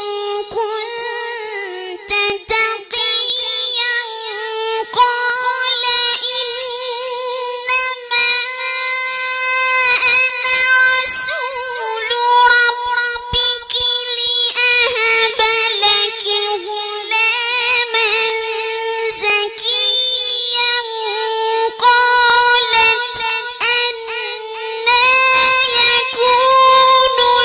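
A child's high voice singing in a long, ornamented melodic line, holding notes and bending around them, with short breaks between phrases.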